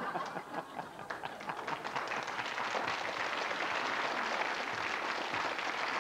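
Studio audience applauding in response to a comedian's punchline: scattered claps at first, building into steady applause after about a second.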